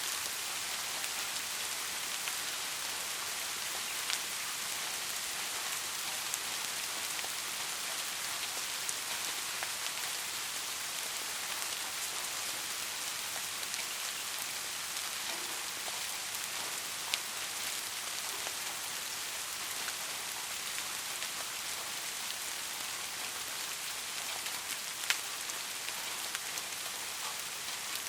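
Steady rain falling, an even hiss of many drops with occasional individual drops ticking sharply, louder than the rest, a few times.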